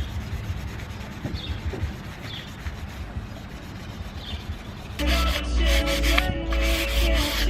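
Sandpaper being rubbed by hand over a plastic bumper spoiler, wet sanding in repeated scraping strokes. About five seconds in, louder music with heavy bass comes in.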